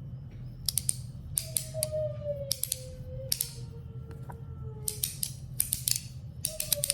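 Metal haptic slider fidget coin being worked by hand: irregular sharp metallic clicks, single and in quick runs, as the magnets snap the slider through its positions over a thrust bearing. After some clicks a faint ringing tone hangs on and slowly falls in pitch.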